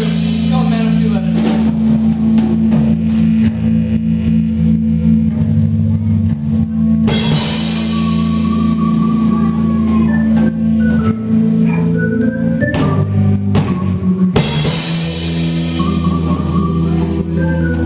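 Live indie rock played by a trio of electric guitar, electric bass and drum kit: long held guitar and bass notes under a melodic guitar line, with cymbal crashes about seven and fourteen seconds in.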